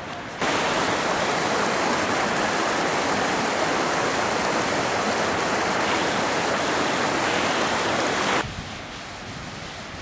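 River water rushing over a rocky bed of rapids, a steady loud rush that starts suddenly about half a second in and cuts off near the end.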